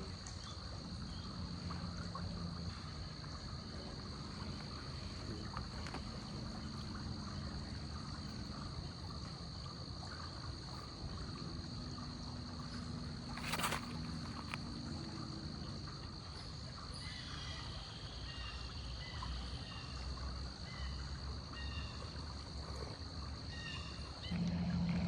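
Steady outdoor ambience: a constant high-pitched whine over a low rumble, with one sharp click about halfway through and short scattered chirps in the second half.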